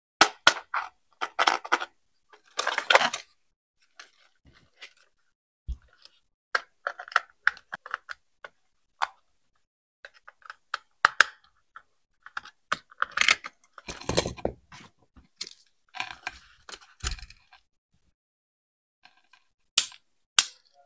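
Hands handling toy RC car packaging and parts: irregular plastic clicks and taps with a few short rustles, separated by silent pauses.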